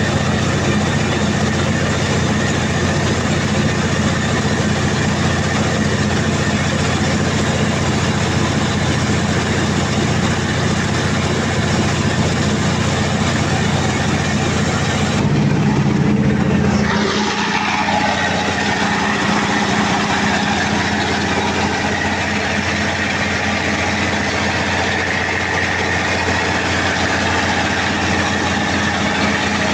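Perkins 2806-series diesel generator engine running steadily with a loud low hum. About halfway through, a whine falls steeply in pitch and the hum's tone shifts.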